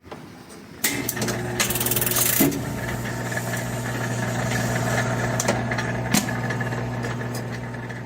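1947 Seeburg jukebox's record-changing mechanism running: a steady motor hum with several clunks and clicks as it selects and sets the record before playing.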